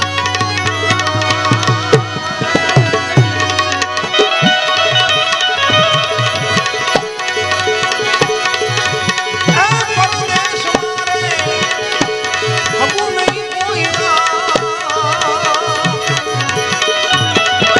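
Tabla played in fast, dense strokes over sustained harmonium notes: an instrumental stretch of a Gujarati devotional bhajan, with a wavering melodic line above near the start and again near the end.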